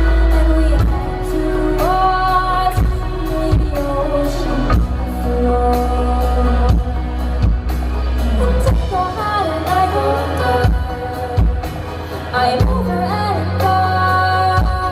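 Live pop music: a woman singing a melody over heavy, boomy bass and regular drum hits, in a poor-quality concert recording.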